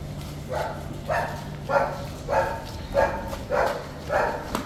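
A dog barking in a steady run, about seven barks evenly spaced a little under two a second, starting about half a second in.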